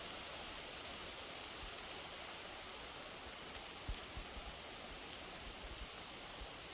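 Wind blowing through trees: a steady, faint hiss, with a few short low thumps from about four seconds in.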